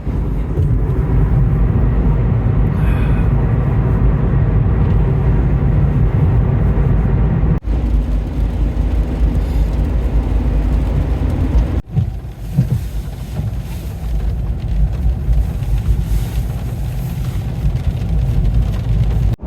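A car running down the road: a steady, loud low rumble of engine and road noise, broken by two abrupt cuts partway through.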